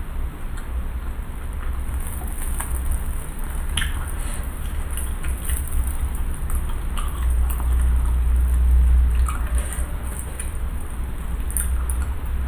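Close-miked, ASMR-style crackling and soft squishing of a fried cireng (tapioca dumpling stuffed with shredded chicken) being torn apart by hand and chewed. The small crackles are scattered and irregular, over a steady low rumble.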